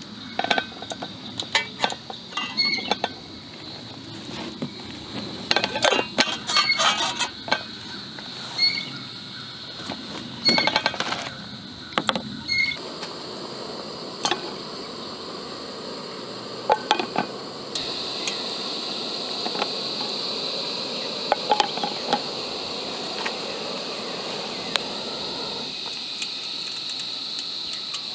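Metal cook pot, lid and clip-on windshield clinking and knocking as they are set on an Optimus Crux gas canister stove. From about halfway a steady hiss of the burner runs, growing louder in one step about two-thirds in as the gas is turned up.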